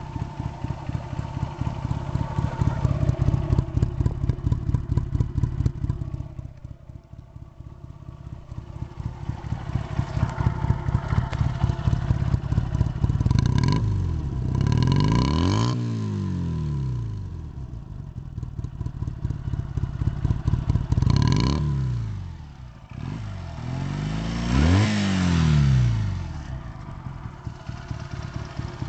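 Honda Rebel 125's small parallel-twin engine through empty, baffle-less mufflers, idling with a pulsing exhaust beat. It is then revved in several blips, its pitch rising and falling, near the middle and again toward the end.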